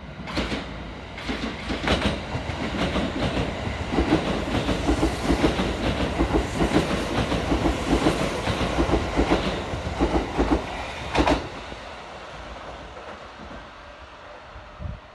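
Kintetsu 80000 series 'Hinotori' limited express electric train passing through a local station without stopping, its wheels clattering rhythmically over the rail joints. The clatter stops about eleven seconds in and the train's sound fades as it runs away.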